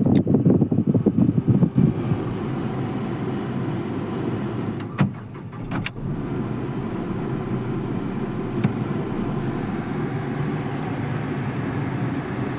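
Renault Kwid's engine running, louder and uneven for the first couple of seconds, then settling to a steady idle. Two sharp clicks come about halfway through.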